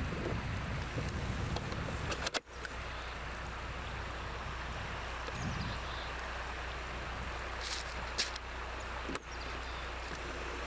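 Steady rushing outdoor noise with a constant low hum under it, on an old camcorder's microphone; it drops out briefly about two and a half seconds in and again about nine seconds in.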